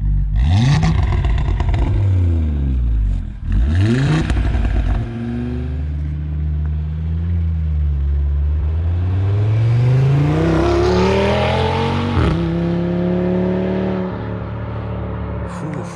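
Audi RS3's turbocharged five-cylinder engine breathing through a newly fitted aftermarket sport exhaust with its valves open. It revs up and down several times, then climbs steadily in revs and drops sharply about twelve seconds in, as at a gear change or lift-off.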